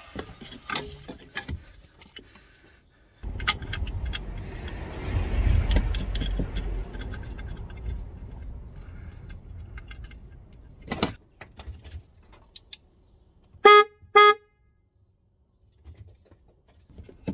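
Newly fitted 12-volt electric disc horn on a VW Passat B6 sounding two short beeps about half a second apart, a test that the replacement horn works. Before the beeps there are several seconds of rustling and clicks as the horn and its connector are handled.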